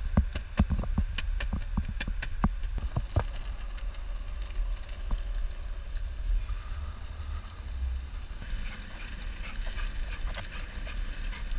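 Longboard wheels rolling over asphalt with a steady low rumble, heard close up from the board. Sharp irregular clicks and knocks come thick in the first three seconds, then the rolling goes on more evenly.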